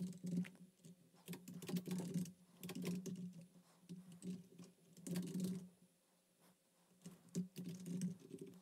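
Typing on a computer keyboard: quick irregular runs of keystrokes, with a short pause about six seconds in.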